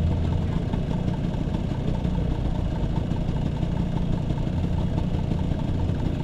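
Vespa P150S scooter's single-cylinder two-stroke engine idling steadily.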